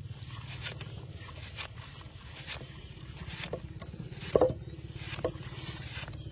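Kitchen knife slicing small green limes, with short sharp cuts about once a second, the loudest just past the middle. A steady low hum runs underneath.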